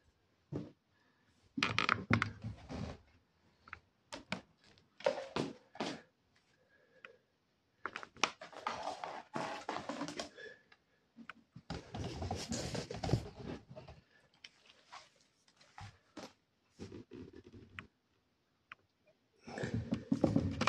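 A Labrador retriever squirming and rubbing itself on a leather sofa and fleece blanket: several bursts of rustling and rubbing a second or two long, with scattered light knocks and clicks between them.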